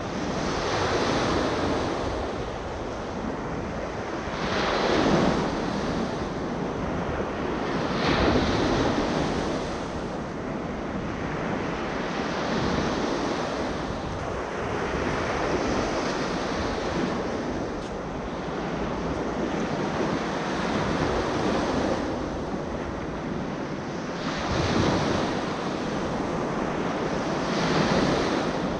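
Small ocean waves breaking and washing up a sandy beach, the surf swelling into a louder crash every few seconds and hissing back down between them, with wind rumbling on the microphone.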